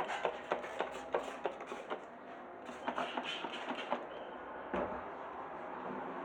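A cloth wiping and rubbing over a dishwasher door, with irregular small clicks and light knocks and one firmer knock near the end.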